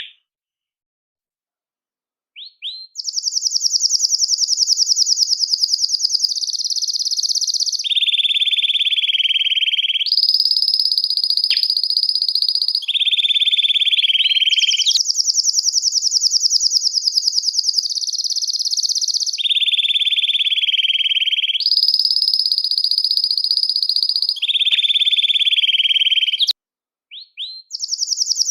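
Domestic canary singing a long unbroken song of rapid trills, switching every few seconds between a high trill and a lower one. It opens after about two seconds of silence with a few short chirps. The song cuts off abruptly about two seconds before the end, followed by a couple of short chirps.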